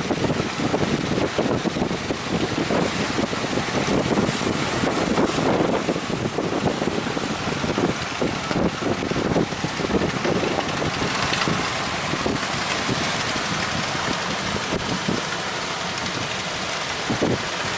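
Strong wind buffeting the microphone in gusts, over a steady rushing noise.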